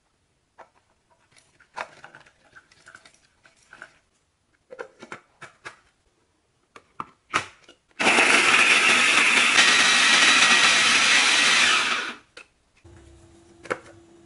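Small electric food chopper running for about four seconds, its blades coarsely chopping shallots and red bird's-eye chillies, then stopping abruptly. Before it starts there are a few light knocks and rustles.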